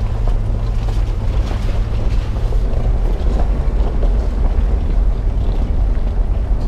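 Car driving slowly over a gravel road: a steady low rumble of engine and tyres, with small stones crackling under the wheels and wind buffeting the bonnet-mounted microphone.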